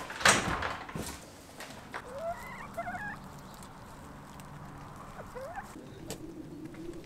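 A sharp knock as a wooden door is pulled open, just after the start; then a hen clucking, a few short rising calls in two groups.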